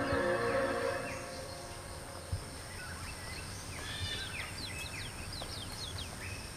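Background music fading out in the first second, then outdoor ambience with scattered short, quick bird chirps over a steady high thin whine.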